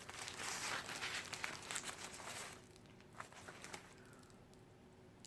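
Food packaging crinkling as it is handled and unwrapped, a dense crackle of quick rustles for about two and a half seconds, then a few faint clicks.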